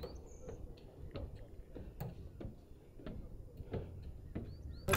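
Footsteps on a hiking trail heard as faint, irregular taps about two a second, with a few short high chirps of a small bird near the start and again near the end.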